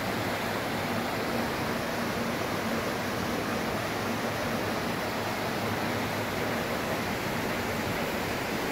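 Steady rushing of a small mountain creek running over rocks, an even noise with no breaks.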